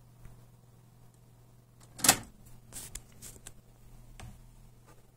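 Cassette deck's transport buttons and mechanism clicking: one sharp clunk about two seconds in, then a few lighter clicks, over a faint steady hum.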